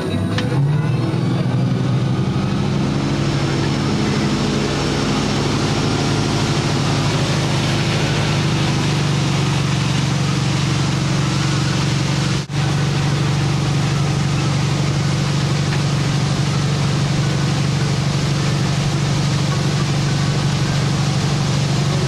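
Tow boat engine throttling up to pull a hydrofoil water-skier up out of the water, its pitch rising about half a second in, then running steadily at towing speed with rushing water and wind noise. A brief dropout about twelve and a half seconds in.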